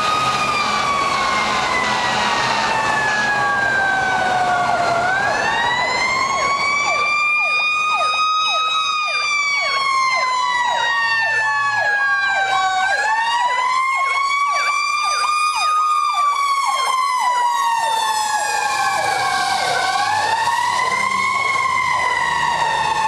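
Electronic siren of a 2005 Pierce Dash fire engine on an emergency response, wailing in slow rising and falling sweeps of about four seconds each. A faster choppy warble runs over the wail through the middle.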